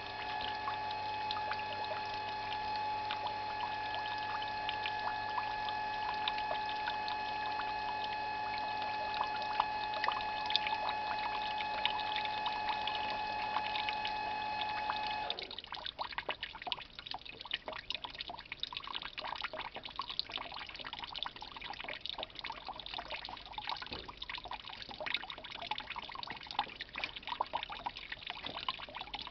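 Fresh-pressed Pinot Gris grape juice trickling from a wine press spout into a plastic tub, over the steady hum of the transfer pump sending the juice to the cellar. The pump cuts off suddenly about halfway through, leaving only the trickle and drips.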